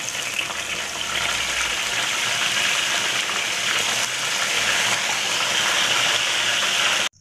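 Catfish deep-frying in hot oil in a wok: a dense sizzle that starts suddenly as the fish goes into the oil, grows a little louder after about a second as more fish is added, then holds steady and cuts off abruptly near the end.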